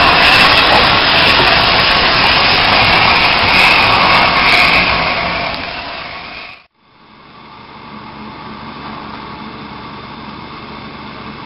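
LNER A4 class steam locomotive moving past at close range with its coaches, a loud, even rush of steam and running noise that fades after about six seconds. After a cut, a much quieter, steady sound of a steam locomotive working a train in the distance.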